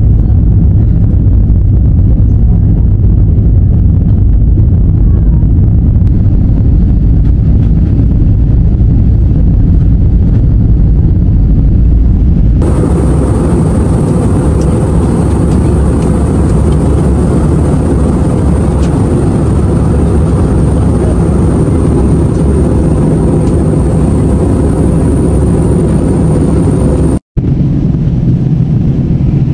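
Steady jet engine and airflow noise inside the cabin of an Airbus A320-family airliner climbing after takeoff. About 13 seconds in, the rush turns brighter with a faint high whine, and it cuts out for a moment near the end.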